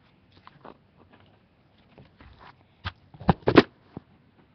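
Handling noise as paper banknotes are sorted close to the microphone: scattered soft rustles and clicks, then a cluster of loud knocks and rubbing about three seconds in.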